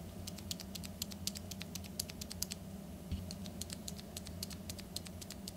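Cherry MX mechanical key switches on a switch tester pressed repeatedly in quick succession: a fast, uneven run of light clicks, several a second, with a short pause about three seconds in, over a steady low hum.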